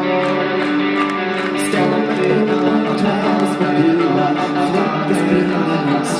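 Live rock band: a man singing in Swedish at the microphone over electric guitar and the rest of the band.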